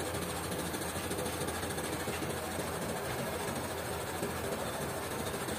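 A machine running steadily with a fast, even rattle.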